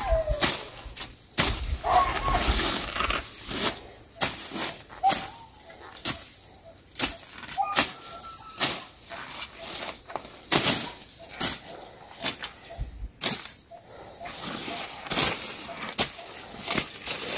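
Machete slashing through grass and weeds: sharp swishing cuts in an irregular rhythm, roughly one every second.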